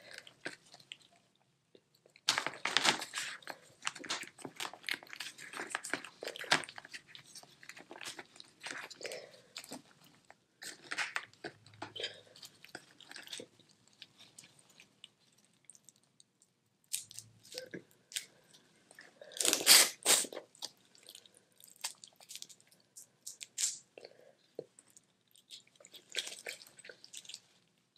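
Close-miked eating of boiled crawfish: shells cracking and crunching, with chewing, in several bursts separated by quiet pauses, loudest about twenty seconds in.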